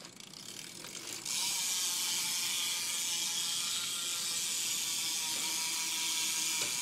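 Rear cassette hub of a BMX bike, an Animal Javelin with a 9-tooth driver, with its pawls ticking so fast as the rear wheel spins freely that the clicks blur into a steady, loud buzz. The sound builds about a second in.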